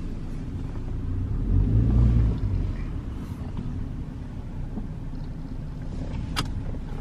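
A car's engine running with a low rumble as the car is backed into a parking space. The rumble swells briefly about two seconds in, and there is a single sharp click near the end.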